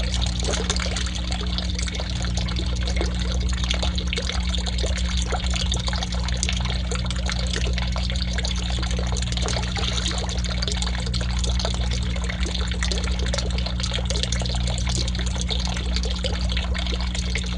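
Water pouring steadily into a small garden pond, a continuous trickling and splashing, over a steady low hum.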